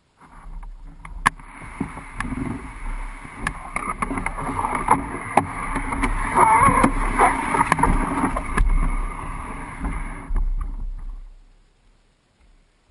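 Hull of an Old Town Pack Angler canoe scraping and bumping over the ground as it is dragged, picked up through the hull-mounted camera, with many sharp knocks. It starts just after the beginning and stops about a second before the end.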